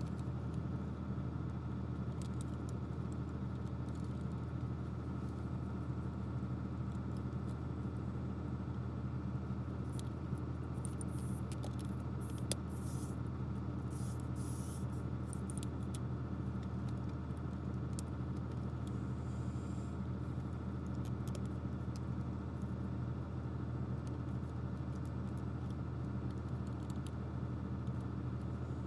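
Steady low mechanical hum, with scattered light clicks and brief scraping from small plastic toy parts being handled, most of them in the middle of the stretch.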